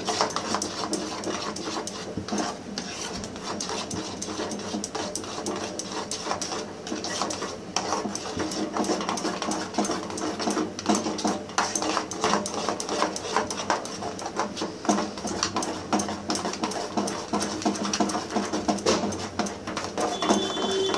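A metal ladle stirring and scraping a thick ragi and jaggery mixture in a steel pot as it cooks down and stiffens. It makes a fast, uneven run of scrapes and knocks against the pot.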